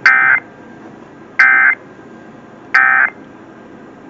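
Emergency Alert System end-of-message data tones: three short, identical buzzy bursts of digital SAME code, about a second and a half apart, marking the end of the monthly test message.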